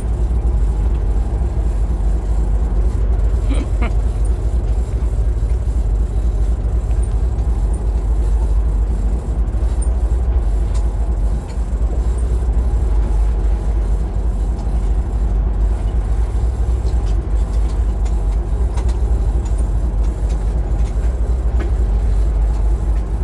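Sport fishing boat's engine running steadily, a continuous low rumble, with a few faint clicks over it.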